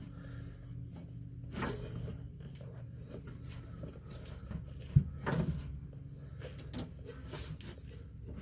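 Scattered rubbing and scuffing as an air bag is worked up inside a pickup's rear coil spring, with one sharp knock about five seconds in.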